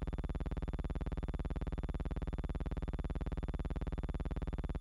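A steady buzzing drone with a fast, perfectly even pulse, unchanging throughout; no crowd or engine sound.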